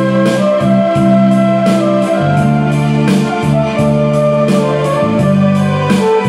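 Flugelhorn playing a slow melody in long held notes over a backing track of keyboard and guitar with a steady beat.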